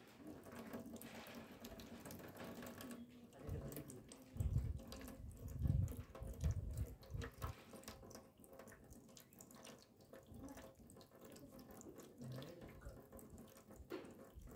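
Water running from a tap in a thin stream into a metal trough, with a few loud low rumbling bumps through the middle few seconds.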